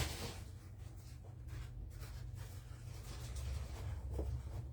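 Quiet room tone with a steady low hum and a few faint, short clicks of small handling noise.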